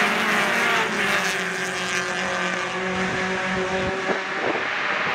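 Race car engine running at speed on the track, a steady, even engine note that thins out after about three seconds.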